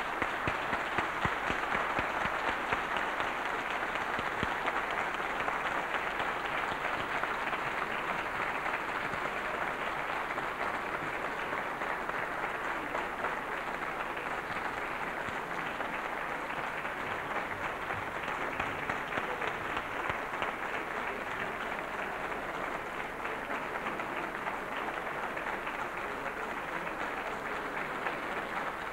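Large audience applauding: steady, dense clapping that eases off slightly toward the end.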